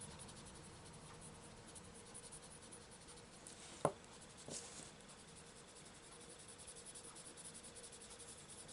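Prismacolor coloured pencil shading lightly on paper: a faint, steady scratching of quick small strokes, with a single sharp click about four seconds in.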